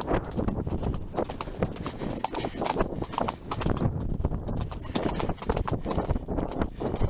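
Rapid, irregular hoofbeats of a ridden horse moving fast along a soft, muddy, grassy track.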